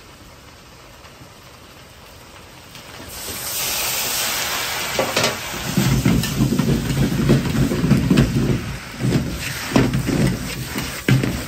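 Fried rice stir-frying in a large wok over a high gas flame. A loud burst of sizzling and hissing steam starts about three seconds in. After that, a metal ladle scrapes and knocks through the rice against the wok again and again.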